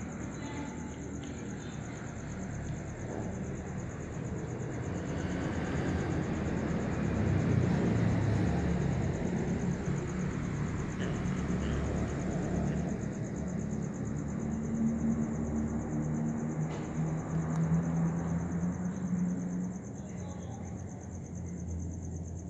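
Insects trilling steadily in a constant high-pitched buzz, over a low rumble that swells and fades twice.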